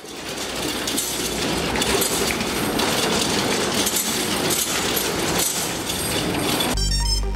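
A steel roll-up door being raised by its hand chain: the metal slats rattle and clatter steadily and the chain clinks. Electronic music with a heavy beat comes in near the end.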